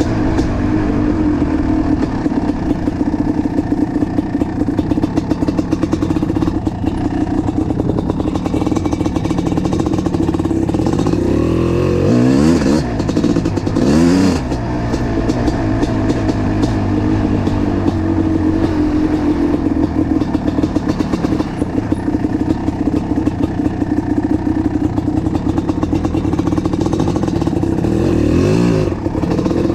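1988 Kawasaki KX500's liquid-cooled 500 cc single-cylinder two-stroke engine, fitted with an FMF Fatty pipe and DEP silencer, idling while it warms up after a cold start. Two short throttle blips come about halfway through, and a third near the end.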